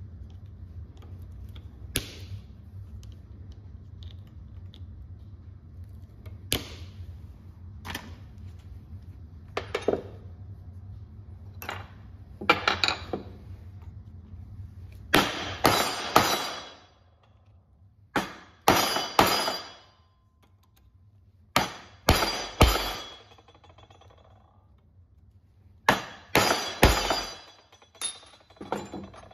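Copper rivets being set in a leather belt. First come a few single sharp snips as end-cutting nippers trim the rivet posts. Then come bursts of several quick hammer blows at a time, ringing metallically, on the rivet setting tool and rivets, with short rests between the bursts.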